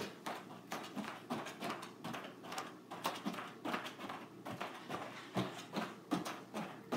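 Hands slapping a wrestling mat as a person walks on their hands, a quick uneven patter of about three slaps a second. The sharpest slap comes right at the start, as the hands first plant for the kick-up into the handstand.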